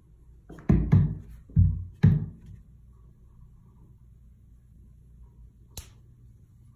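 Bare feet thudding onto a glass digital bathroom scale on a wooden floor: four heavy footfalls within the first two seconds, then one short click near the end.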